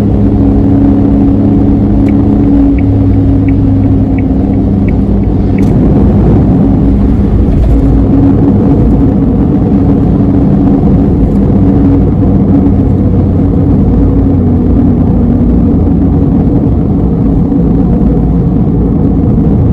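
Suzuki Alto Van (HA36V) 658 cc three-cylinder engine running steadily at expressway cruising speed, with tyre and road rumble, heard inside the small van's cabin. A short run of six light, evenly spaced ticks comes a couple of seconds in.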